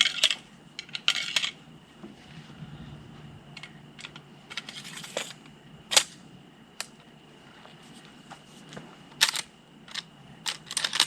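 Sharp metallic clicks and clatters of .44 Magnum cartridges being handled and loaded into a Henry Big Boy lever-action rifle, with a short scraping rasp about five seconds in. A faint steady high tone sits underneath.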